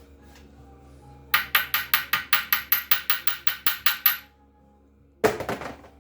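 Impact wrench hammering on connecting-rod nuts in a fast, even run of about six blows a second for nearly three seconds. It stops, then gives one more short burst near the end.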